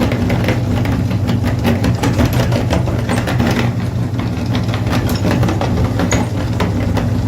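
Electric kitchen grinder running steadily, its motor humming while the contents inside rattle and crunch in many quick clicks.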